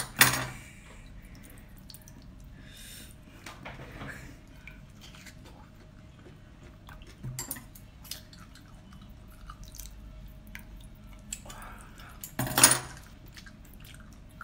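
Wet mouth sounds of eating raw geoduck: chewing with scattered small clicks and smacks. Two much louder sharp wet bursts come, one at the very start and one about twelve and a half seconds in. A faint steady hum runs underneath.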